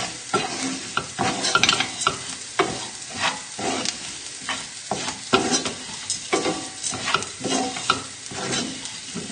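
A wooden spoon stirring and scraping risotto rice, chorizo and shallots around a frying pan, over a steady sizzle of hot oil, with scrapes coming irregularly about one or two a second. The rice is being turned in the chorizo oil to coat it before stock is added.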